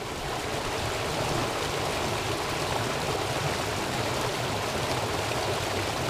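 Mountain stream rushing over rocks in a small cascade: a steady rush of water that fades in at the start.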